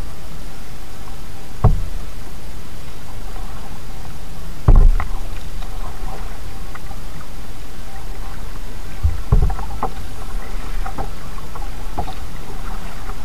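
Kayak paddling heard through a bow-mounted action camera: a steady low rumble with three dull knocks, about two, five and nine seconds in, as the paddle works alongside the hull.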